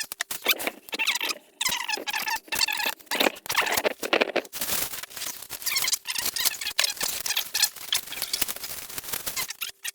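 Plastic packaging being handled and pulled off rubber bumper plates: a dense run of crinkling crackles with high squeaks, heaviest between about two and four and a half seconds in.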